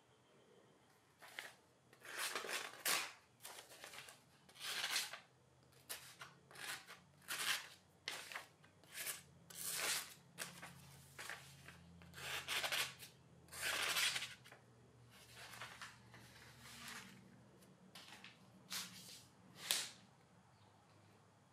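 A steel knife blade slicing through a sheet of printer paper in a long series of short rasping cuts, roughly one to two a second, ending about a second before the close. It is an edge test on a hand-forged bloom steel blade whose cutting its maker finds poor, and which he puts down to soft, low-carbon patches along the edge.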